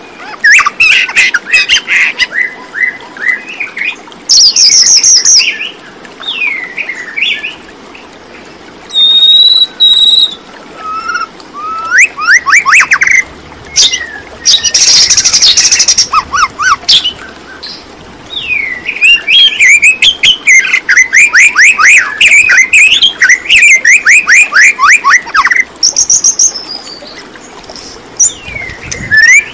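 Birds chirping and calling in quick runs of short, sweeping notes, loud, with some higher whistled notes and a brief harsh squawk about halfway through.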